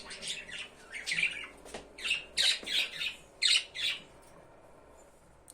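Budgerigars calling: a quick run of short chattering calls, several a second, that stops about four seconds in.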